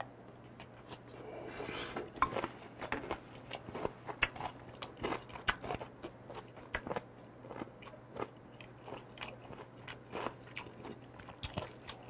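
Close-up chewing of a mouthful of food topped with kimchi and cucumber: irregular crisp crunches and wet smacks, a couple a second, starting about two seconds in.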